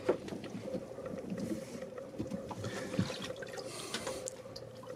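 Gentle water lapping and trickling against a sailboat's hull and the inflatable dinghy alongside, with a few light knocks and clicks and a faint steady hum underneath.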